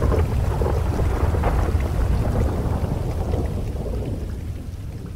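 Thunder rolling over steady rain: a deep rumble with crackles that is loudest at the start and slowly dies away toward the end.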